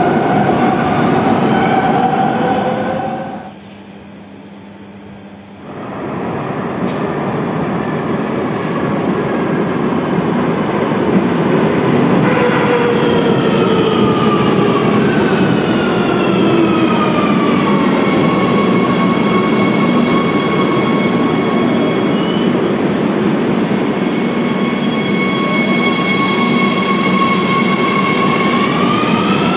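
Madrid Metro Serie 3000 electric train running through an underground station, over a steady rumble of wheels on rail. Its traction motors whine in several tones that fall as it brakes into the platform, hold steady, then rise again near the end as it pulls away. The sound drops away sharply for about two seconds early on.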